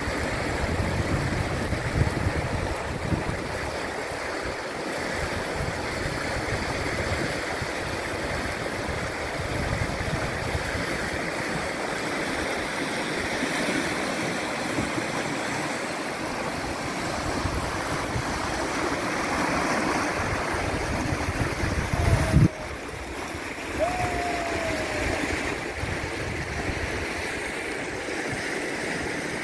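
Rushing water of a river rapid, a steady wash of whitewater. About two-thirds of the way through there is a loud bump, then a brief dip in the sound.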